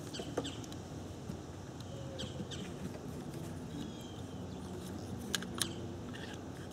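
Ignition coil pack being pressed into place and its electrical connector handled: light plastic clicks and taps, with one sharp click near the start and two close together about five seconds in, over a faint steady background hum.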